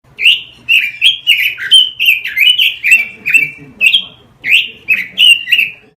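A Pekin robin (red-billed leiothrix) sings a quick run of short, clear whistled chirps, nearly three a second, many of them dropping in pitch. A short pause breaks the run a little past four seconds in.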